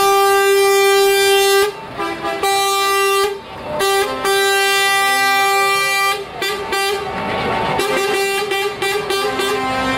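Truck air horns blasting: a long held blast, a few short toots about two seconds in, another long blast from about four to six seconds, then a string of shorter, broken honks.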